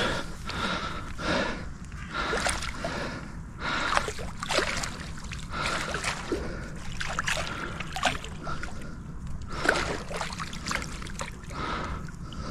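Water splashing and sloshing in irregular bursts as a hooked carp thrashes at the surface while it is drawn in close.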